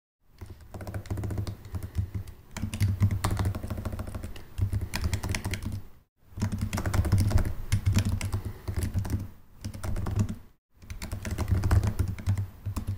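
Typing on a computer keyboard: fast runs of key clicks, broken twice by brief pauses.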